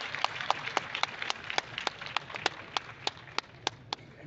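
Audience applauding, with one set of hand claps close to the microphone at a steady three or four claps a second. The crowd's applause fades away and the close clapping stops about four seconds in.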